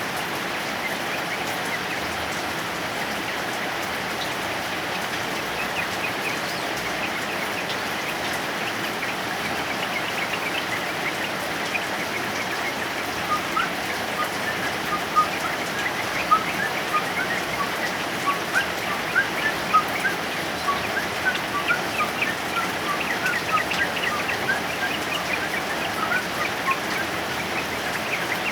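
Steady heavy rain, with a male yellow-vented bulbul singing rapid strings of short chirping notes that build up from about halfway through.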